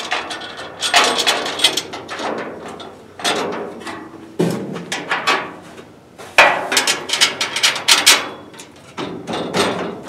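Bursts of sharp metal clanks and rattles, coming in several clusters, as a long metal bed strip is handled and knocked against the steel crossmembers of a pickup bed while its bolt holes are lined up.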